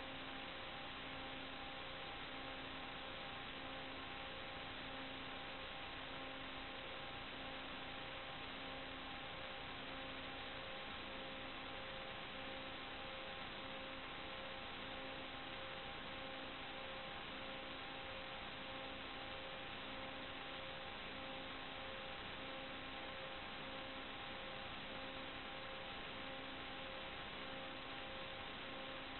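Steady electronic hiss with faint steady hum tones from an analog FPV video link's audio channel, one low tone pulsing on and off about every second and a half.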